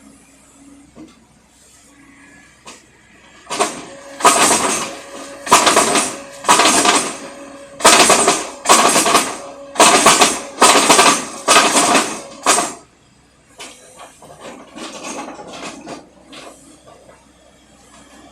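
Small excavator-mounted rotary drilling rig at work. It gives a run of about ten loud, harsh metallic clanks, roughly one a second, starting a few seconds in and stopping about two-thirds of the way through, then lighter scattered clatter.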